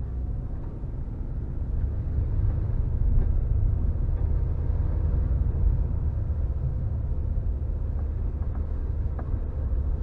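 Car driving along a dirt track, heard from inside the cabin: a steady low rumble of engine and tyres, with a few faint ticks near the end.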